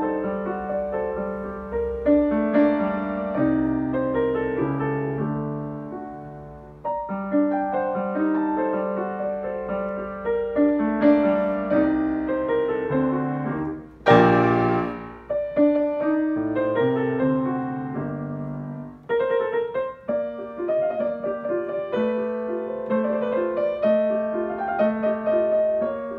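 A 1980 New York Steinway Model D-274 concert grand piano being played: flowing melody over chords, with one sudden, loud full chord about fourteen seconds in.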